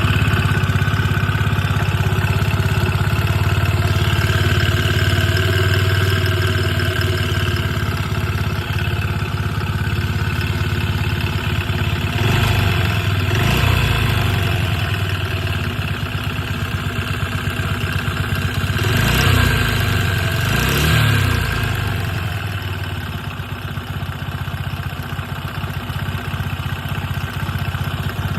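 Honda Gyro Canopy scooter engine idling with a heavy rattling and clunking from the engine, an abnormal noise. It is revved up and back down twice, about halfway through and again a little later.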